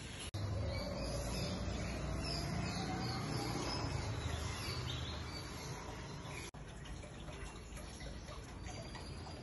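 Outdoor background noise with a low rumble and birds chirping, briefly cutting out twice.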